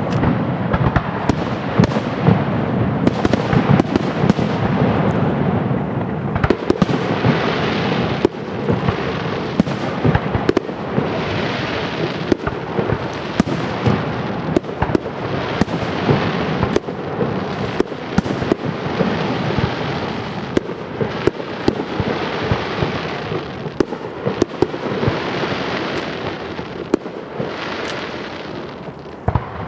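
Aerial firework shells bursting in quick succession: many sharp bangs over a continuous rolling rumble.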